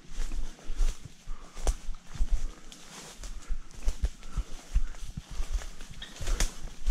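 Footsteps crunching and rustling through dry leaves and weeds while walking down a steep hillside: irregular thuds, about two a second.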